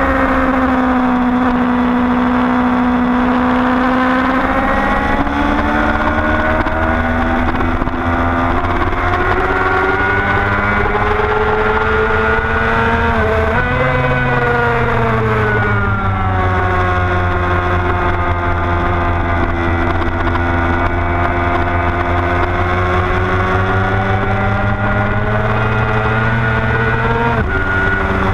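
Motorcycle engine running hard on a race track. Its note slowly falls and rises as the bike slows for corners and accelerates out of them, with sudden changes of pitch at gear shifts about halfway through and near the end.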